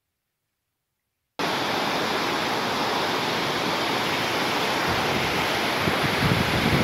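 Silence, then about a second and a half in a large waterfall cuts in abruptly: a loud, steady rush of whitewater pouring over rock steps.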